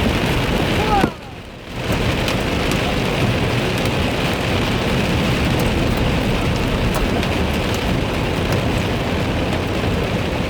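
Heavy rain pouring down in a steady, loud hiss, with scattered sharp ticks throughout. About a second in, the sound drops out briefly, then comes back.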